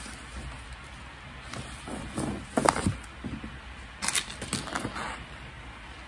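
Hands handling a thin disposable face mask and a small lanyard clip: irregular rustles and small clicks, the loudest about two and a half seconds in and again around four seconds.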